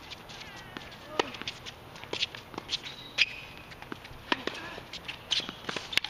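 Tennis rally on a hard court: sharp pops of racket strings striking the ball and the ball bouncing, about once a second, the loudest a little after one second and about three seconds in. Brief sneaker squeaks and footsteps on the court come between the hits.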